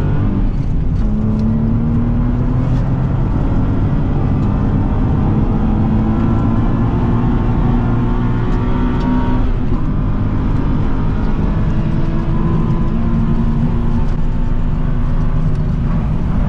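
Car engine held at high revs through a fast drift, steady with small rises and falls in pitch and a brief dip about ten seconds in, over a steady rushing haze.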